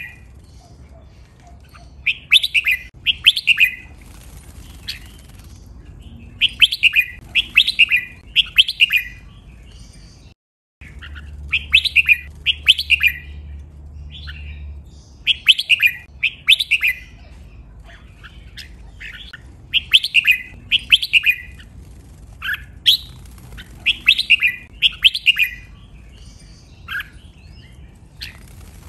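Red-whiskered bulbuls singing: loud, clear phrases of several quick, bright notes, repeated every few seconds.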